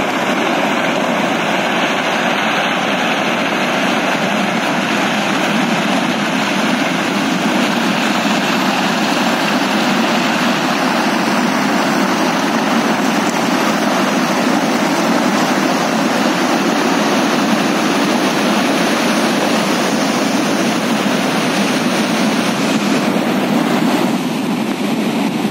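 Flash flood of muddy water and rocks pouring down a steep rocky gully: a loud, steady rushing noise.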